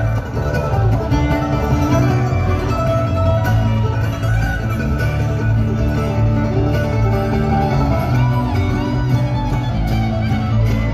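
Live bluegrass string band playing an instrumental passage: fiddle and mandolin over a steady upright bass line, with no singing.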